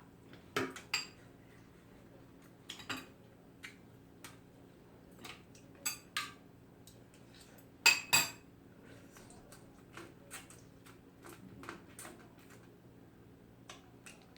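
Spoon and chopsticks clicking and clinking against bowls while eating, in scattered short strokes with the loudest pair about eight seconds in, over a faint low steady hum.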